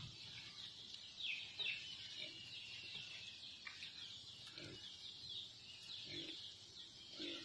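Faint birds chirping, with many short falling chirps repeating, and a few soft low clucks of chickens.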